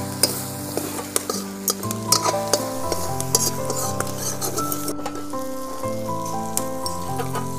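Chicken frying and sizzling in a steel kadai while a metal ladle stirs it, scraping and clinking against the pan many times. Soft background music with held chords plays under it.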